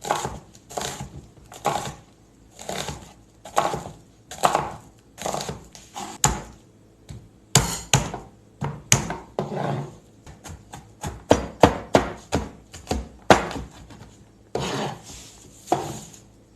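Knife chopping on a cutting board in a series of separate strokes. The strokes come irregularly, about one a second at first, then quicker near the end.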